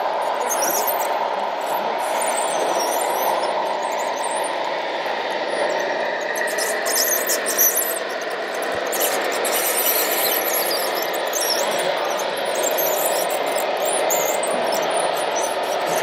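Radio-controlled scale Komatsu D65PX bulldozer crawling along, its tracks and drive giving a steady squealing mechanical noise with fast light clicking.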